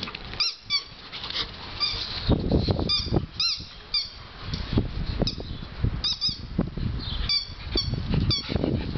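Squeaky rubber dog toy squeaked over and over by a Samoyed biting on it: about a dozen short, high, honking squeaks, some in quick pairs. Wind rumbles on the microphone underneath.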